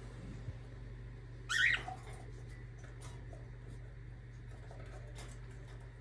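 A cockatiel gives one short chirp about a second and a half in, over a steady low hum, with a few faint clicks afterwards.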